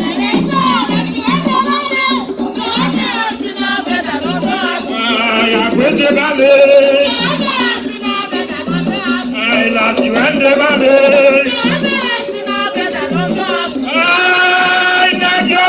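Live music: a group of voices singing over a steady percussion beat, with a long held note near the end.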